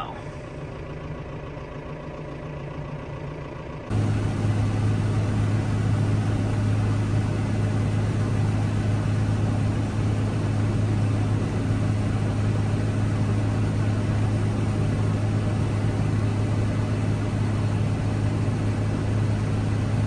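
Tractor cab noise while driving, then, from about four seconds in, a louder steady drone with a strong low hum: a Case IH combine unloading shelled corn through its auger into a grain cart, heard from inside the pulling tractor's cab.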